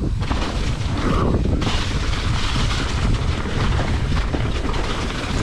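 Wind buffeting the microphone over the rattle and thuds of a hardtail mountain bike riding fast down a rough, rocky trail with drops. The noise gets brighter and hissier about a second and a half in.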